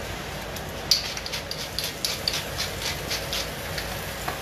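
Zucchini sizzling in avocado oil in a pan, with a run of light, quick ticks, about four or five a second, from about a second in as it is seasoned.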